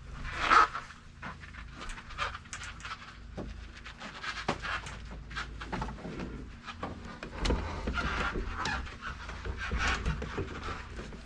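Irregular scraping, rustling and knocks as a copper refrigerant line set is pushed and pulled through a wall hole, with a person breathing hard.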